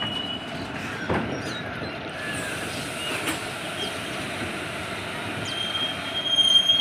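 Passenger train rolling slowly, heard from inside a coach by an open window: a steady rumble of wheels on rail. A high, steady wheel squeal sets in about five seconds in and grows louder near the end.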